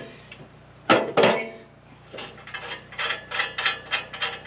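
Steel pallet forks and their clamps clanking against a tractor loader's steel bucket as they are fitted: two sharp metal knocks about a second in, then a run of quick metallic clinks and scrapes.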